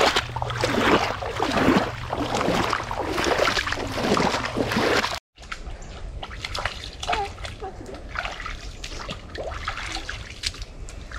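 A person wading through shin-deep floodwater, each stride a sloshing splash at an even walking pace. About five seconds in the sound cuts off sharply, and what follows is quieter: light splashes and drips.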